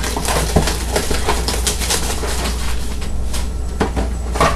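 Crackling and rustling of plastic wrap and card packaging being handled and opened, a dense run of small crackles and clicks.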